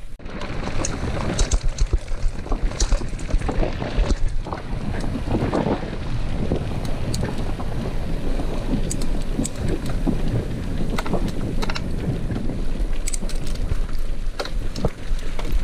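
Wind rushing over the microphone of a camera mounted on a mountain bike riding a dirt road, with the tyres running on dirt and many short clicks and rattles from the bike over bumps.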